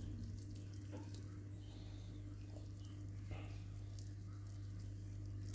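Siberian cat eating shredded cooked chicken, heard as faint wet chewing and squishing sounds a few times over a steady low hum.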